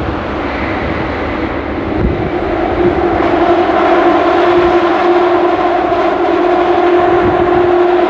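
London Underground Jubilee line 1996-stock train running through the tunnel: a loud, steady rumble, with a hum at two pitches that comes in about three seconds in and holds.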